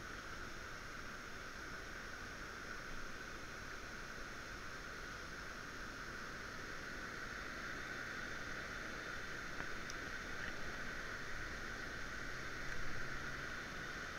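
Steady, even hiss of water, with a couple of faint ticks about two-thirds of the way through.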